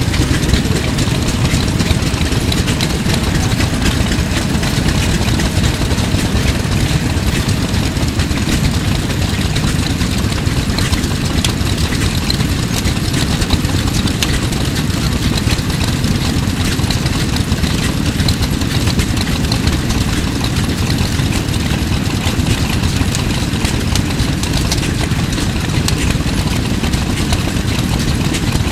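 Houston, Stanwood & Gamble horizontal steam engine, from around 1920, running steadily under steam.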